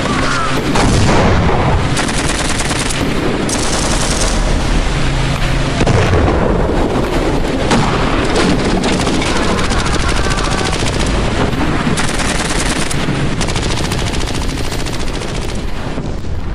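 Battle sound effects: sustained machine-gun fire in rapid bursts, mixed with heavier gunshots, running without a break.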